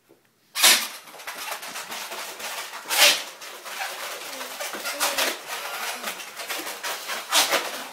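Latex twisting balloon squeaking and rubbing as it is twisted into an animal shape, with a few louder squeaks standing out: about half a second in, about three seconds in, and near the end.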